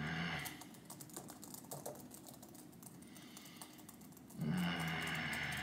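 Fast, irregular typing on a computer keyboard, key clicks going on throughout. A louder steady low hum joins in briefly at the start and again for about the last second.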